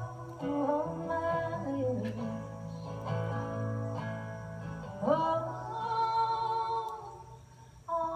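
A live song performed by women's voices singing long, bending held notes together over acoustic guitar.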